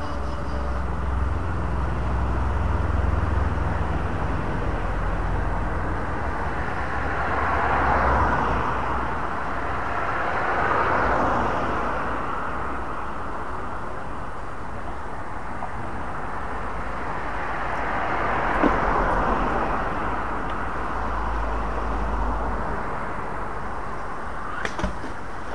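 Road traffic passing: several vehicles go by, each a rush that swells and fades over a few seconds, over a steady low rumble. A couple of sharp clicks near the end.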